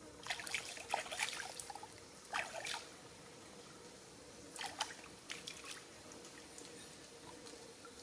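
Shallow stream water splashing and dripping as live tire track eels are lifted and handled in it by hand, in three short bursts during the first six seconds.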